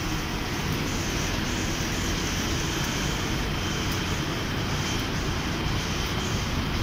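Steady city street noise: a constant rumble of traffic and urban din with no distinct events, and a faint steady high tone running through it.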